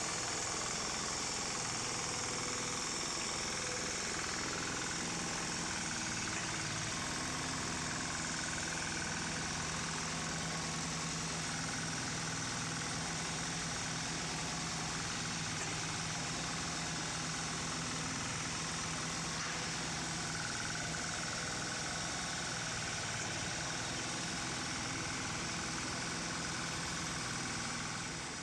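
Small engine of a DDW Mini Dumper 500DH running steadily as the machine drives and works its loading shovel, its pitch shifting slightly with the load.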